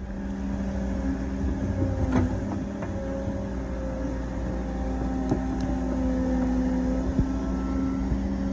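Cat mini excavator working, its diesel engine running steadily, with a few light knocks.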